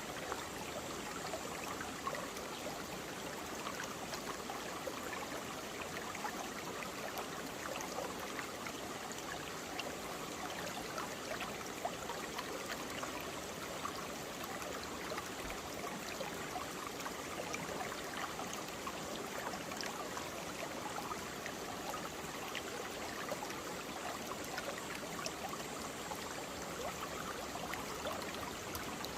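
Mountain stream flowing over rocks, a steady rush of water with many small splashes and gurgles.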